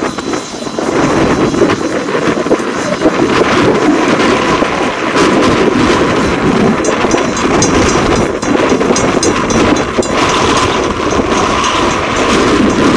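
Norfolk & Western 4-8-0 steam locomotive No. 475 running by with its passenger coaches: a steady, loud mix of exhaust and running-gear noise, with wind buffeting the microphone.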